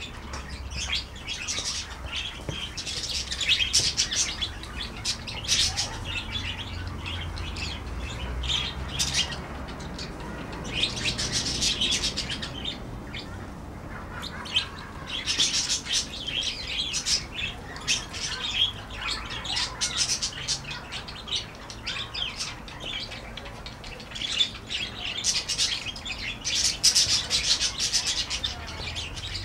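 A flock of budgerigars chattering: a continuous stream of high chirps and warbles that swells into louder bursts every few seconds, over a low steady rumble.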